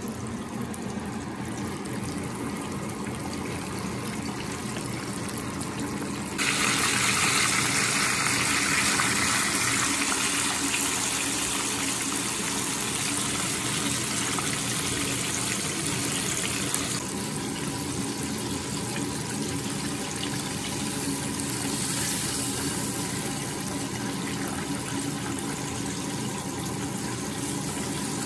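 Chicken pieces deep-frying in hot oil: a steady bubbling sizzle that gets suddenly louder and brighter about six seconds in and eases somewhat after about seventeen seconds.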